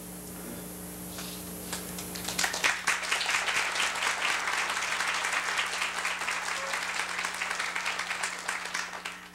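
Theatre audience applauding: a few scattered claps at first, then full applause from about two and a half seconds in that dies away at the end.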